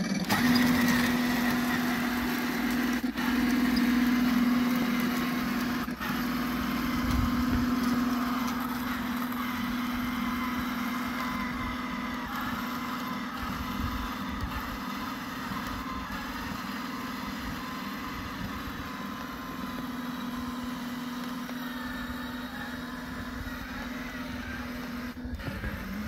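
Radio-controlled model tank running as it drives through snow, a steady mechanical drone with one strong held tone that slowly fades as the tank moves away.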